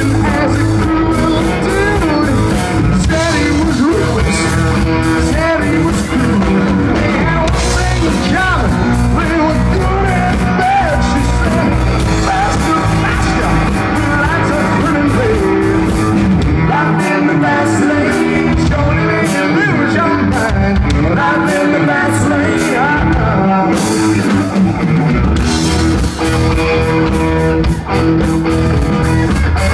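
Live rock band playing loudly: a man singing lead over electric guitar, electric bass and drum kit.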